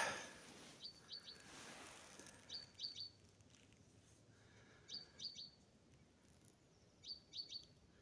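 A bird singing: four short phrases of three or four quick high notes, repeated about every two seconds.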